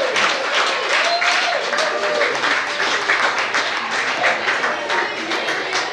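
Spectators clapping, many quick irregular claps, mixed with shouting voices.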